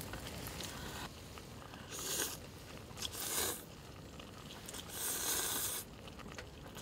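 Ramen noodles slurped off chopsticks in three slurps, about two, three and five seconds in, the last the longest.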